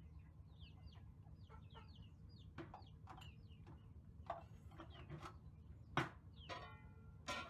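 Faint scattered animal calls: short high chirps and squeaks, a few clicks, a sharp click about six seconds in, and two short calls near the end.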